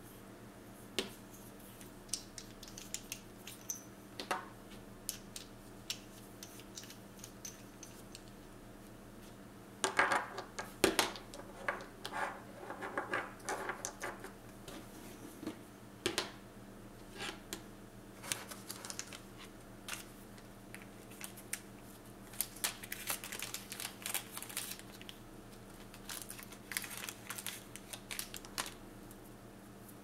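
Small clicks, taps and light rustling of hands handling craft things: brass wax-seal stamp heads picked out of a plastic box of wax beads and set down on the table, and a ribbon strip being handled. The clicks come in a denser run about ten seconds in and again through the last third.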